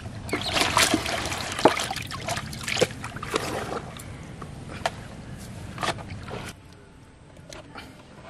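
Water splashing and sloshing, with scattered sharp clicks and knocks; busiest in the first few seconds, then thinning out and dropping much quieter about two-thirds of the way through.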